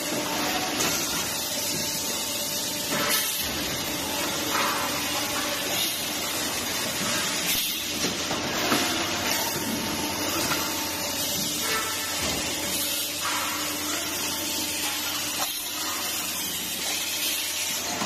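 Automatic stainless-steel cup production line running: a steady machine hiss and hum, with short bursts every few seconds.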